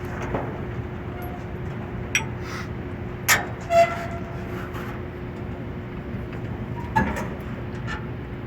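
A few sharp metal knocks and clanks from handling the fan and its mounting hardware, the two loudest coming in quick succession in the middle with a brief metallic ring, over a steady background hum.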